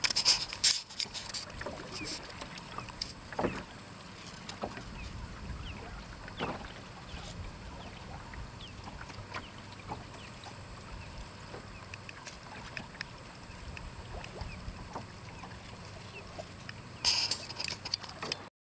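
Water splashing and trickling along the hull of a small wooden sailboat under way, with many scattered drips and small splashes. Brief louder hissing rushes at the start and again near the end.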